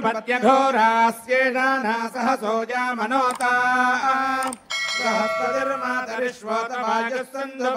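Male priests chanting Sanskrit Vedic mantras in a near-monotone recitation, with a bell ringing briefly about five seconds in.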